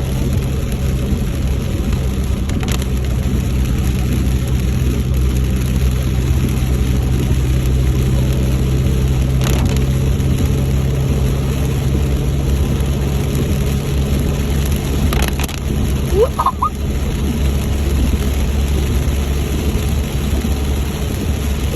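A vehicle driving: a steady low engine hum with road noise. A few faint clicks come through, and a short high squeak sounds about sixteen seconds in.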